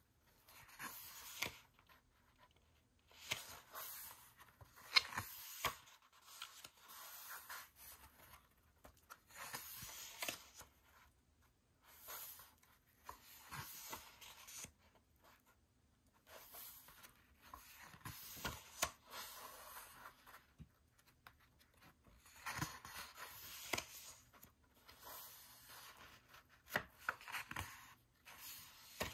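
Pages of a glossy photobook turned by hand one after another: about a dozen short paper rustles with soft taps and quiet gaps between them.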